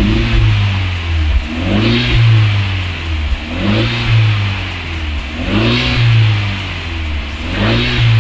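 Fiat 124 Spider's 1.4 MultiAir turbo four-cylinder, fitted with a Ragazzon aftermarket rear silencer, revved from idle in short blips about every two seconds. Each blip rises and falls in pitch, with the engine settling back to idle between them.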